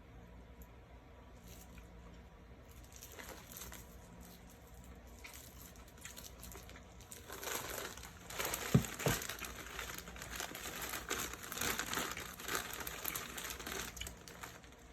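Crinkling of banana-chew candy packaging being handled: faint at first, then louder and busier through the second half, with a brief knock about nine seconds in.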